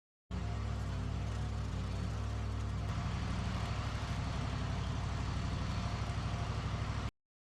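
Wood-Mizer LT15 sawmill's motor running steadily, starting and stopping abruptly. About three seconds in it takes on a faster, pulsing throb.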